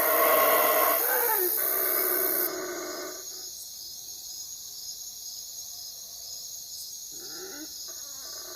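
A dog howling: a long wavering howl over the first three seconds, then after a pause a short whining call about seven seconds in.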